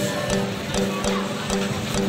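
Music with held notes over a steady beat.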